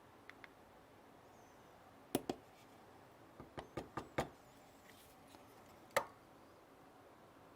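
A run of sharp knocks and clicks of hard objects: two faint ticks at the start, a double knock about two seconds in, a quick cluster of five or six knocks around the middle, and one loud knock near the end.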